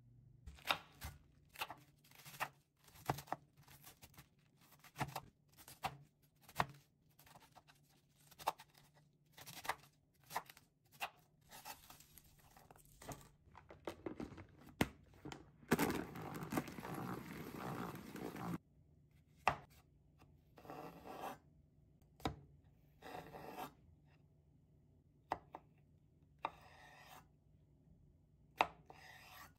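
Kitchen prep sounds: a string of sharp chops and clicks on a cutting board, then a salad spinner whirring for about four seconds, then more knife cuts through cucumber near the end.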